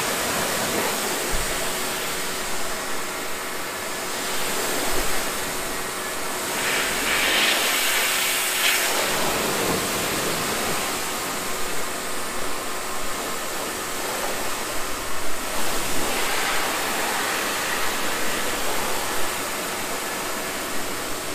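Pressure washer lance jet spraying water onto a car's side panels and wheel, a steady hiss that turns sharper for a couple of seconds about seven seconds in as the jet moves across the car.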